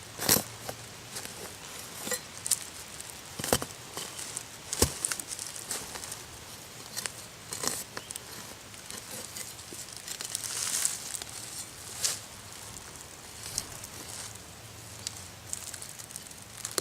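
Rustling and crackling of dry leaves and brush, with a few sharp knocks: three in the first five seconds and a louder rustle about ten seconds in.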